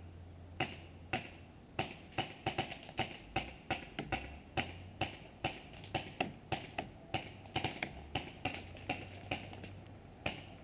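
Paintball markers firing across the field: a string of sharp pops, irregular, about two a second, some in quick pairs.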